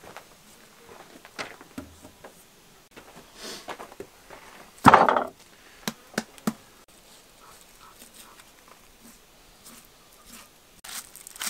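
A large raw lamb joint set down heavily on a wooden board, one dull thump about five seconds in, with a few light knocks after it. Near the end a knife starts cutting into the raw meat with a short scratchy tearing sound.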